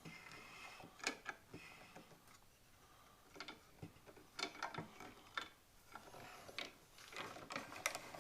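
Faint, irregular light clicks and taps of small stainless steel pen kit parts being handled and fitted together.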